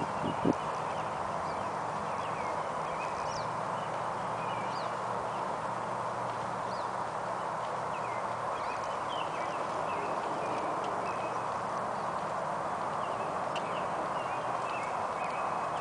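Faint hoofbeats of a horse being ridden on soft dirt arena footing, under a steady rushing background noise.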